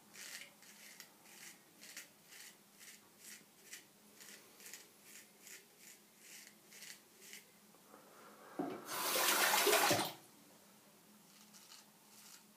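Shavette straight razor scraping through lathered beard stubble on the neck in short, even strokes, about two or three a second. About nine seconds in, running tap water rushes loudly for about a second.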